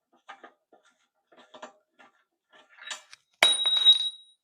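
Steel bolts and nuts being handled with light metal clicks, then a sharp steel-on-steel clang about three and a half seconds in that rings briefly at a high pitch.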